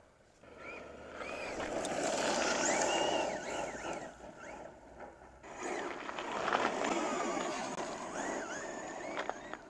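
Traxxas Slash VXL 2WD RC truck drifting on loose gravel: its brushless electric motor whines up and down in pitch with each throttle burst while the tires scrabble and spray gravel. The sound comes in two long passes.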